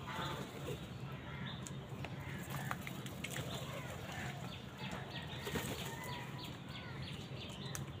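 A flock of house crows moving about on a concrete surface, with wingbeats now and then and faint short calls and clicks over a steady low hum. A quick run of soft ticks comes in the middle.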